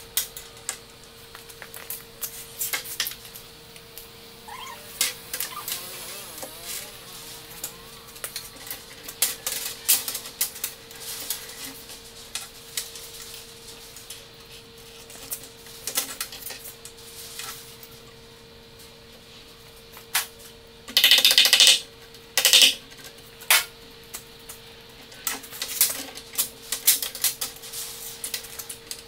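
Metal chains of a Maslow CNC clinking and rattling as they are handled by hand and hooked back onto the motor sprockets: scattered sharp clinks, with a louder run of rattling about two-thirds of the way through. A faint steady hum lies underneath.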